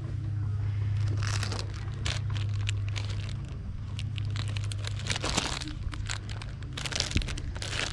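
Plastic packaging wrap crinkling in irregular rustles as a wrapped coupon organizer is handled, over a steady low hum.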